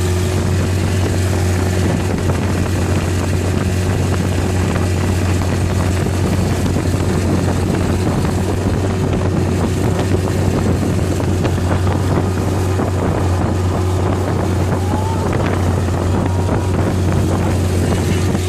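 Long-tail boat's engine running steadily under way, a loud, constant low drone, with wind buffeting the microphone.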